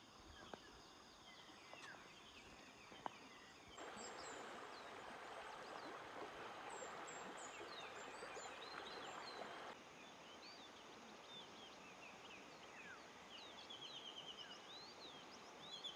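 Faint natural ambience of birds chirping, with the rush of a shallow river over stones for several seconds in the middle, which starts and stops abruptly. A rapid trilling call comes near the end.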